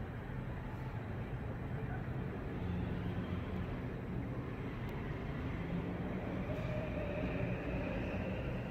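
Steady low rumble of distant city traffic heard through an open high-rise window, with a faint whine rising slightly in pitch in the second half.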